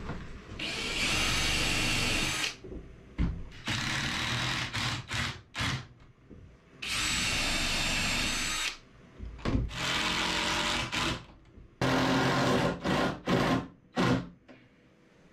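Ryobi cordless drill driving screws into wood, running in starts and stops: two long runs of about two seconds, several shorter runs and a few quick blips of the trigger as the screws are seated.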